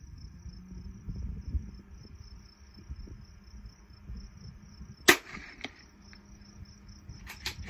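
A single sharp shot from a .22LR rifle about five seconds in, the loudest sound, followed by a few light clicks near the end. Crickets chirp steadily throughout.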